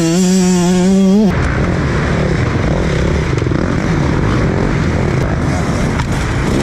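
Dirt bike engine held at a high, steady buzzing pitch for about a second. It then gives way abruptly to a louder, rough engine noise with no clear pitch.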